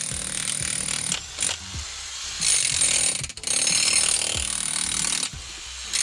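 Electric jackhammer running in bursts as it breaks into the ground for a footing hole, loudest in two long stretches with a short break between them.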